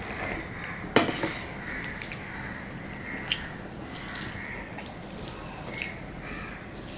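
Fingers mixing rice and fish on a stainless steel plate, with soft wet squelching and small clicks against the metal. About a second in comes a sharp clink of steel dishware, the loudest sound.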